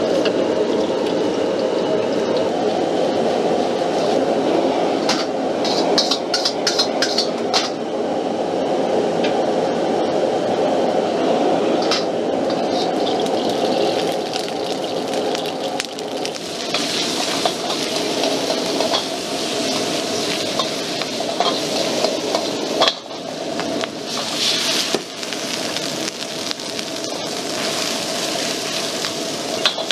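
A high-output gas wok burner runs with a steady rush, while a metal ladle clanks and scrapes against the steel wok. From about halfway through, food sizzles loudly in hot oil as it is stir-fried.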